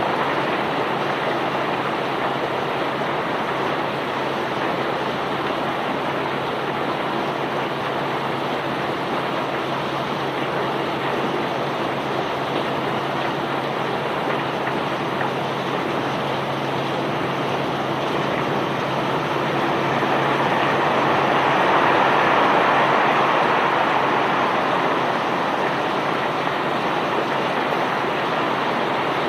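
Self-unloading barge's unloading machinery running, with bulk cargo rushing and pouring in a steady noisy stream over a low engine hum. The hum fades about two-thirds of the way through as the rushing swells louder for a few seconds.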